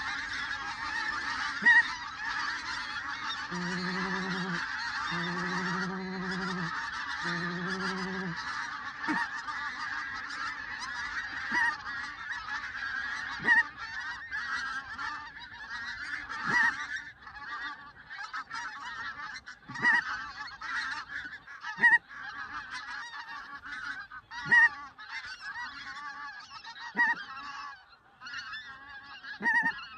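A flock of geese honking and calling continuously, thinning out in the second half to scattered separate honks. Three low, steady notes sound over the calling about four seconds in.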